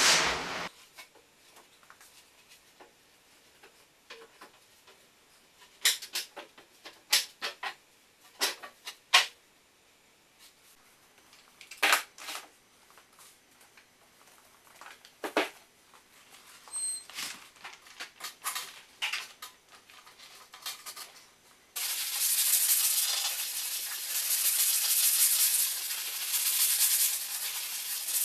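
Scattered light clicks and knocks, then, about three-quarters of the way in, a steady hiss of a pad being rubbed by hand back and forth over a Baltic birch plywood tabletop, swelling and easing with each stroke.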